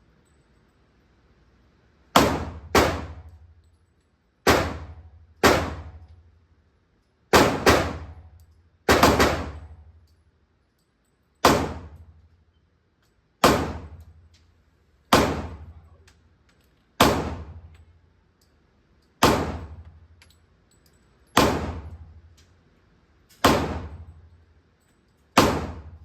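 Gunshots on a shooting range: about sixteen shots fired at a steady pace of roughly one every one to two seconds, a few in quick pairs, each followed by a long echo.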